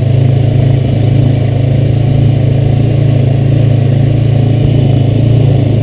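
Honda Rancher 420 ATV's single-cylinder engine running steadily under way, at an even, unchanging pitch.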